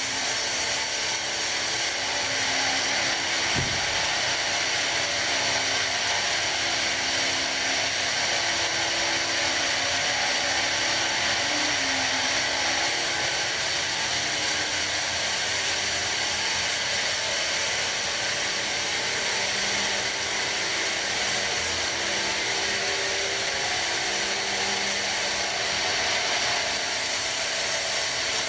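Sawmill band saw cutting through a pine log: a steady high hiss of the blade in the wood over the machine's running hum, with one brief knock about four seconds in.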